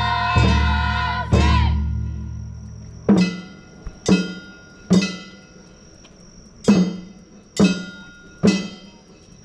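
Traditional Japanese festival accompaniment music. It opens with a loud ringing chord, then about six single struck strokes, roughly a second apart, each ringing out and fading, over a thin high steady tone.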